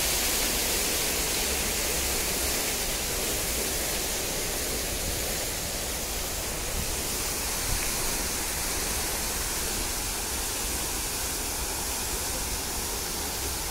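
Fountain water jets spraying and splashing: a steady, even hiss that slowly gets a little quieter.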